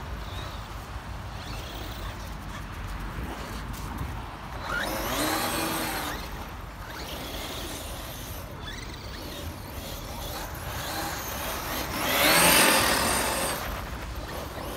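Radio-controlled monster trucks driving over packed snow and dirt, their motor whine rising and falling in pitch as a truck speeds up and passes close. This happens twice, the second pass about twelve seconds in being the loudest, over a low steady rumble.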